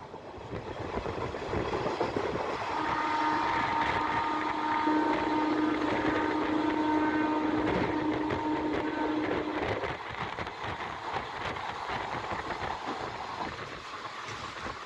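Passenger train running, the rolling noise and rushing air heard from an open coach door. From about 3 s to about 10 s in, a long steady horn sounds over it, a low tone with higher tones above.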